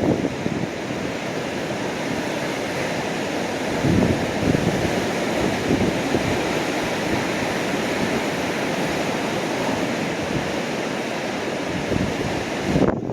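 Rough sea after a typhoon, waves breaking continuously against rocky sea cliffs, with one louder surge about four seconds in. Wind buffets the microphone throughout.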